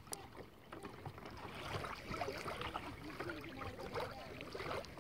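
Water lapping and splashing around a kayak, with faint distant voices carrying over the water from about a second and a half in.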